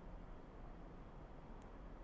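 Faint steady background rumble and hiss, close to silence, with one faint tick near the end.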